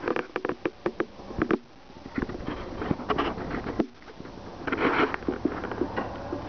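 A cat biting and clawing at a plush fabric cushion: a quick run of small clicks and scratches in the first second and a half, then scattered scuffs, with a brief louder rustle about five seconds in.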